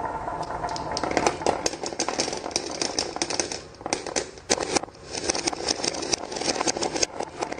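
Marbles rolling and clattering down a wooden marble run, a steady rolling rumble with rapid clicks and clacks as they strike the wooden track pieces and each other.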